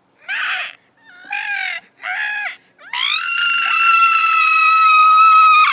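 A girl's voice making deliberate noises: three short squeals, then one long high-pitched scream that rises at the start, is held for nearly three seconds and cuts off suddenly.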